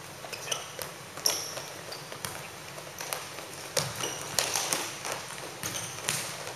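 Indoor futsal play: the ball being kicked and tapped on a plastic-tiled court, with a run of sharp knocks and short high squeaks from players' shoes on the floor.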